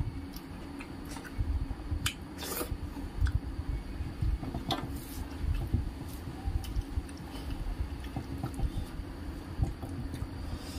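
Close-up wet squishing of rice and dal being mixed by hand on a steel plate, along with chewing, with a few sharp clicks.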